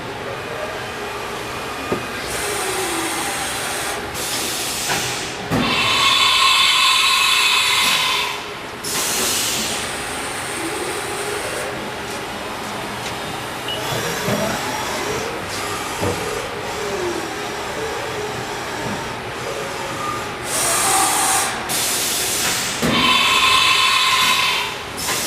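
Haas VM-3 CNC vertical machining center running, its axis drives whining up and down in pitch as they move. Several loud hissing spells, each a few seconds long, come and go over the machine noise.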